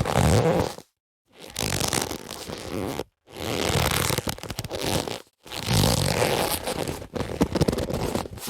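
Leather boxing gloves being handled, rubbing and creaking against each other in stretches of about two seconds with short silent breaks between, and a few sharper knocks near the end.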